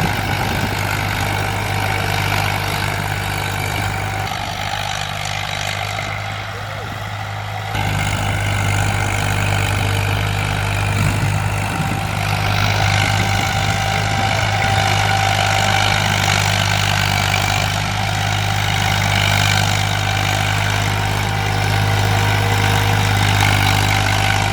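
Tractor engine running steadily with a low hum while pulling a plough. It eases off a little from about four seconds in, then comes back up sharply near eight seconds.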